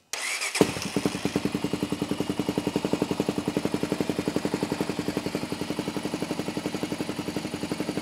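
Honda TRX400EX's single-cylinder four-stroke engine starting on the electric starter, catching within about half a second, then settling into a steady, even idle.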